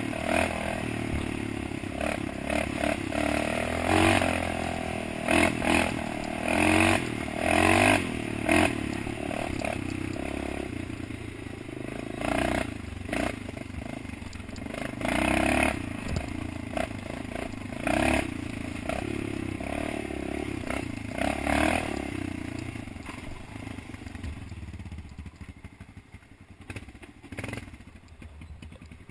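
Off-road motorcycle engine revving up and down under load, with a throttle surge every second or two. It drops off and runs quieter near the end.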